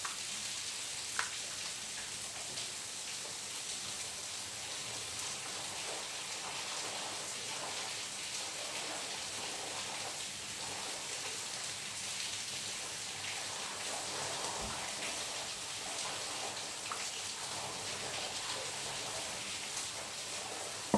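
Steady hiss of background noise, with a sharp click about a second in and a few faint snips of scissors cutting paper.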